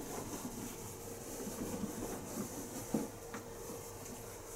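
Whiteboard eraser rubbing across a whiteboard, with a soft knock about three seconds in.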